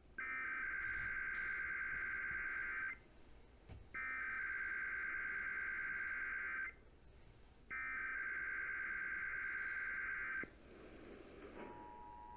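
Emergency Alert System SAME header: three identical bursts of buzzing digital data, each nearly three seconds long with about a second's pause between, the coded header that opens an alert, here a required monthly test. Near the end the steady two-tone EAS attention signal begins.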